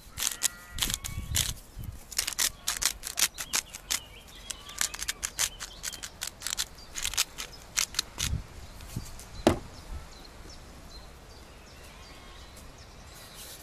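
Hand-twisted salt grinder grinding salt onto fish fillets: bursts of rapid dry clicks for about the first eight seconds, then one sharp knock.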